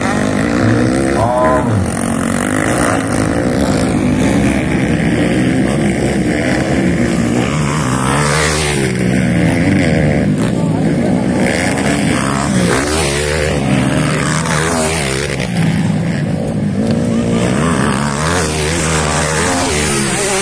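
Several motocross dirt bikes racing, their engines revving up and down through the gears as they accelerate over the track.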